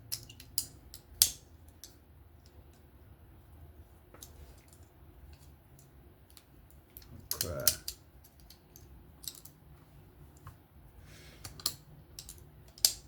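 Scattered light metal clicks and taps from titanium folding-knife parts being handled as the blade is seated onto the pivot during reassembly, with a few sharper ticks among them.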